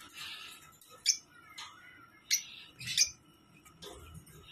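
Caged lovebirds giving short, sharp high calls: three loud ones about one, two and a quarter, and three seconds in, with fainter calls between.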